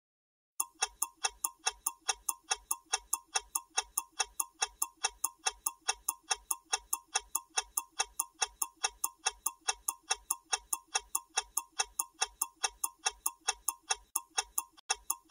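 Clock-ticking sound effect for a quiz countdown timer: even, rapid ticks at about four a second, each with a short bright ring. It starts about half a second in and stops just as the countdown reaches zero.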